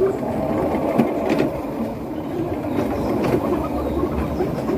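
Sled running down a concrete bobsled track: a steady low rumble of rolling, with a few faint knocks.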